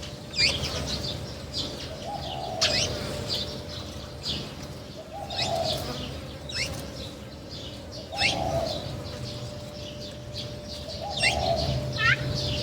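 Birds chirping with many short, sharp, downward-sliding chirps, over a low cooing note that repeats about every three seconds, in the manner of a dove, with a steady low hum underneath.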